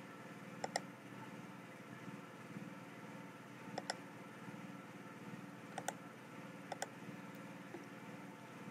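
Clicks from working a computer while copying a link and pasting it into code: four quick pairs of sharp clicks spread through, over a low steady hum.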